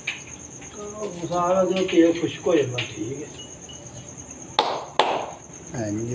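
Crickets chirring in a steady, high, unbroken trill, with two sharp smacks about half a second apart near the end.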